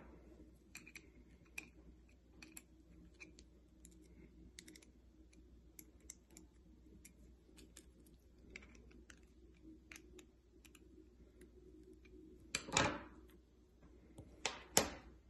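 Faint, scattered small clicks and scrapes of the brass screws on a ceramic thermocouple terminal block being loosened, with two louder knocks near the end.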